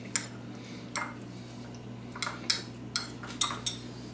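A metal spoon clinking and scraping against a bowl of rehydrated noodles, about seven short irregular clicks, over a steady low hum.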